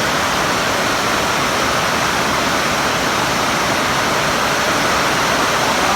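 A loud, steady rushing noise with no rhythm or distinct strokes.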